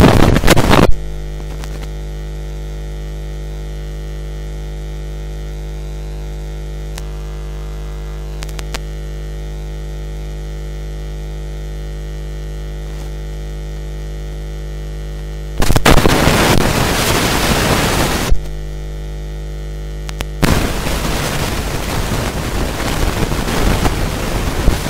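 Steady electrical mains hum from the sound system, a low buzz with many overtones. It gives way to a loud hiss of static for a few seconds about two-thirds through, and again near the end.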